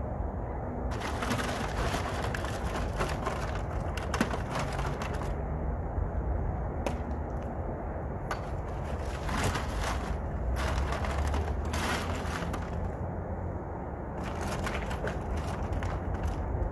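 Broken concrete chunks clattering and scraping in a metal wheelbarrow as they are handled, with irregular sharp knocks throughout over a steady low rumble.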